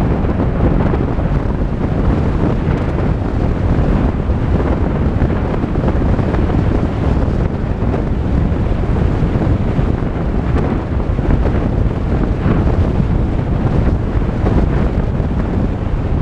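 Steady rumbling road noise of a Volkswagen Tiguan driving on a dirt road, its tyres and running gear heard from inside the cabin.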